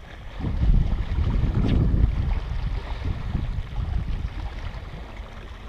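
Wind buffeting the camera microphone, an irregular low rumble, over faint open-water noise.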